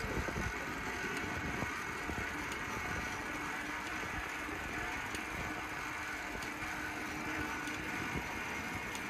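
Noisy bicycle riding along a street: steady rolling and rattling noise with a low rumble.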